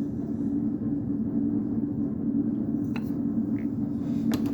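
A steady low machine hum, with a light click about three seconds in and a sharper clack near the end as metal hand tools are picked up and set down.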